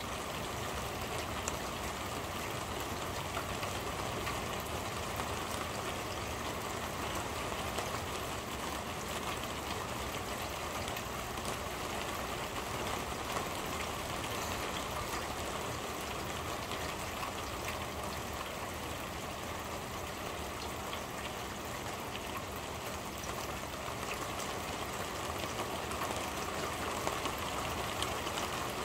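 Steady rain drumming on a corrugated metal roof, heard from underneath: an even hiss of drops with a few single taps standing out now and then.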